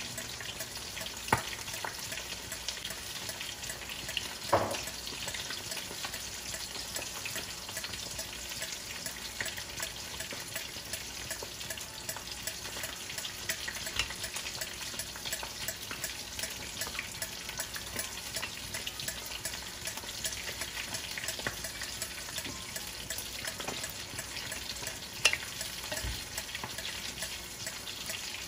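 Chicken broth with misua noodles and chayote bubbling in a stainless steel pan, a steady hiss, while a wooden spatula stirs the soup. Three sharp knocks stand out, one about a second in, one a few seconds later and one near the end.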